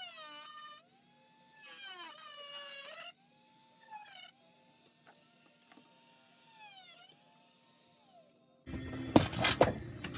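Dremel rotary tool cutting through a Nerf blaster's plastic shell: a steady motor whine whose pitch drops each time the bit bites into the plastic and climbs back as it eases off, in several louder bursts. Near the end comes a sudden loud clatter of plastic, with sharp knocks.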